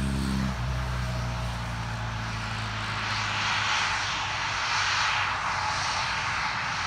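Bombardier CRJ regional jet's twin rear-mounted GE CF34 turbofans at takeoff thrust on the takeoff roll: a steady jet roar that swells in the middle.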